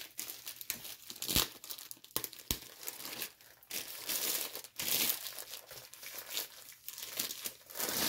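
Packaging of a diamond painting kit crinkling and rustling irregularly as it is opened and handled, with a couple of sharp taps among the rustles.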